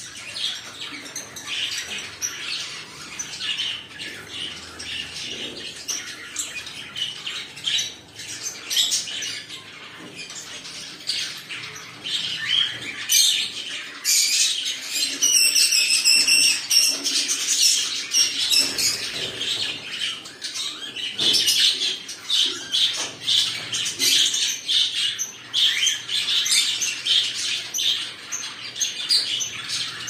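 Cockatiels chirping in quick, repeated short calls while a pair mates, with one longer, held call about halfway through.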